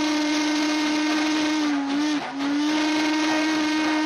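Steam locomotive whistle blowing one long, steady note over a hiss of steam. The note wavers and breaks off briefly about two seconds in, then sounds again.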